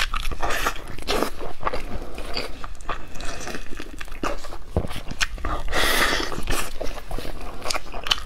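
A person biting and chewing bone-in braised meat held up to the mouth, close to the microphone, with many short irregular clicks and a longer stretch of noise about six seconds in.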